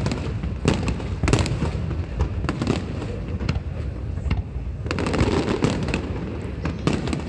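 Fireworks display: aerial shells bursting in a rapid, irregular series of bangs and crackles, thickening into a dense cluster about five seconds in.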